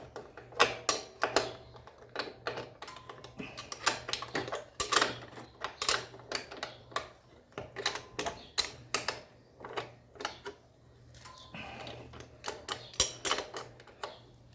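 Irregular sharp metallic clicks and clinks of a wrench working on a motorcycle's rear axle nut as the rear wheel is tightened after the chain has been adjusted.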